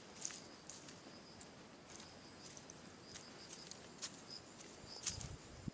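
Soft, irregular footsteps on a grassy dirt path, with a louder thump about five seconds in. A faint steady high-pitched tone with a few short chirps runs behind them.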